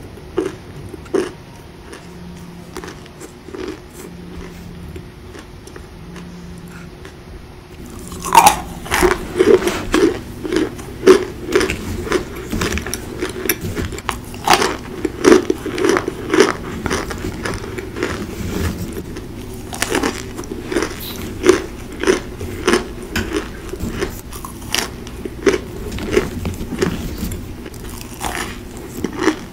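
Chunks of cornstarch being bitten and chewed close to the microphone: a few soft crunches at first, then from about eight seconds in a rapid run of loud, sharp crunches.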